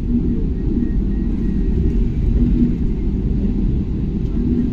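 Deep, steady vehicle rumble with no sharp events.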